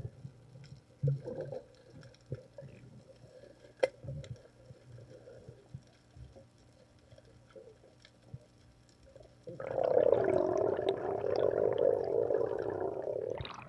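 Underwater sound with scattered faint clicks and muffled knocks. About two-thirds of the way in, a diver's exhaled bubbles rush loudly past the camera for about four seconds, then stop abruptly.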